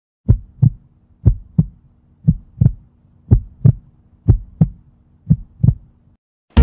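Heartbeat sound effect: six low double thumps, lub-dub, about one beat a second, over a faint steady hum, cutting off abruptly near the end.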